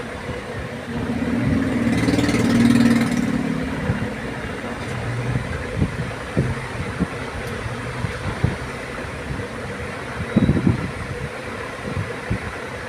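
A motor or engine hums steadily and swells louder for a couple of seconds starting about a second in, with scattered low knocks throughout.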